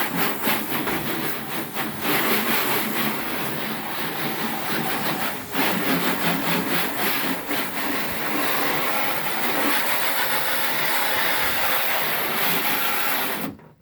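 A rag rubbed back and forth over a car hood, scrubbing off a water-soluble release coating: a steady, dense rubbing noise that cuts off suddenly near the end.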